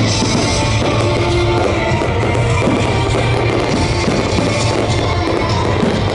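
Music with guitar and drums playing loudly, mixed with fireworks bursting and a dense crackle of many small reports.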